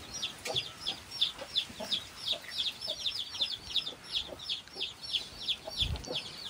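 Chickens peeping: a steady run of short, high, falling chirps, several a second, with faint low clucks under them.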